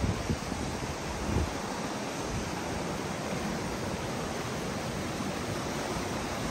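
River water rushing in a steady, even hiss, with a few low rumbles of wind on the microphone in the first second and a half.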